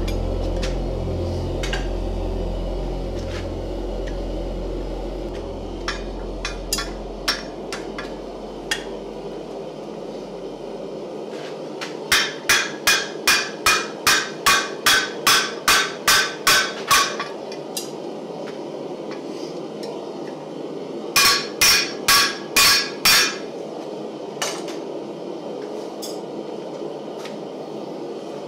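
Hand hammer striking a red-hot railroad spike against an anvil as it is bent around a pin jig into a hook, each blow ringing. A few scattered blows come first, then a run of about a dozen quick strikes at two or three a second, then a short run of five.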